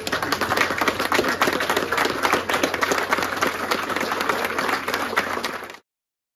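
A group of people applauding, many hands clapping at once, which stops abruptly near the end.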